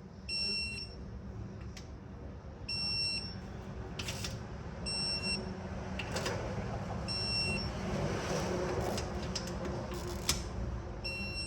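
Electronic torque wrench beeping as each camshaft bearing cap bolt reaches the set 5 ft-lb: five short high beeps about every two seconds, with a few sharp tool clicks between them.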